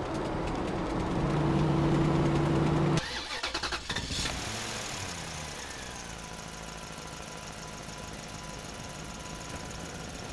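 Engine sounds: a steady hum cuts off abruptly about three seconds in, then an engine starts with a second of quick pulses and settles into a steady idle, its pitch falling before it levels out.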